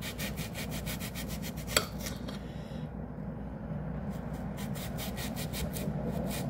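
Kitchen knife sawing back and forth through a peeled onion in quick rasping strokes, several a second, with one sharp click about two seconds in and a short let-up midway.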